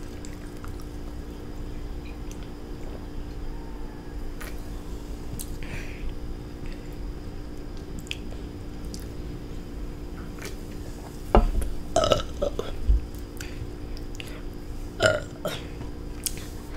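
A child burping: after a quiet stretch with only faint clicks, a few loud short burps come about eleven to thirteen seconds in and another pair about fifteen seconds in.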